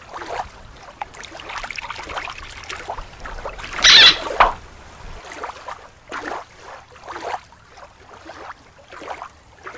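Water splashing and sloshing as a toy sea turtle is pushed through shallow water: irregular small splashes, with a louder splash about four seconds in.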